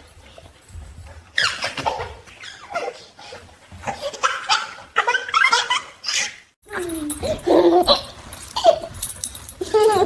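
A baby laughing and giggling in short, repeated bursts, broken by a brief silent gap about two-thirds of the way through.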